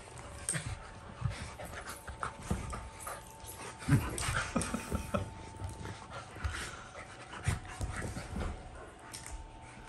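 Dog panting, with irregular soft thumps and scuffles throughout.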